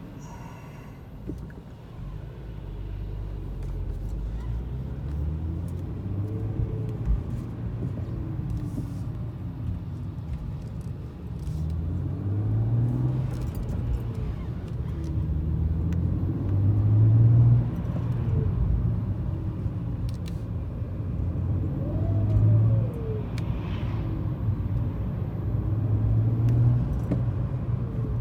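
BMW 335i's N55 turbocharged straight-six pulling under acceleration several times, the engine note rising and then dropping sharply at each change, with a thin howling whistle that rises in pitch alongside it. The howl is the sign of a failing turbocharger; it turned out to be a blown turbo.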